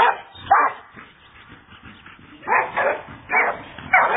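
A dog barking: two sharp barks at the start, then, after a pause of about a second and a half, four more in quick succession.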